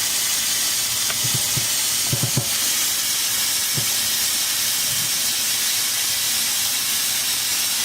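Tap water running in a steady stream into a Tupperware microwave pressure cooker holding soaked dry beans, filling it to the fill line.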